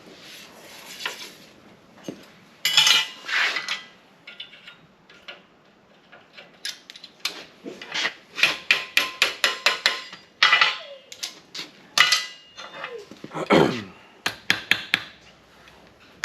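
Hammer taps and metallic clinks of steel on steel as iron chain links are bent into shape. There are scattered single knocks and a run of quick ringing strikes in the middle, about four a second.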